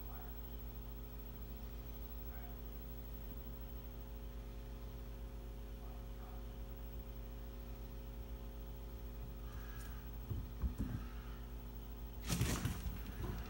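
Steady low electrical hum, with a couple of soft low thumps about ten seconds in and a short scraping rustle near the end.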